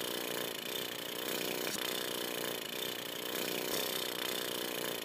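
A harsh, rasping, noisy cartoon sound effect, steady with uneven swells, that cuts off abruptly near the end.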